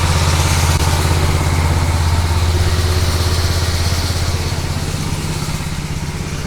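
An engine running steadily at idle, a low pulsing hum that fades slightly near the end.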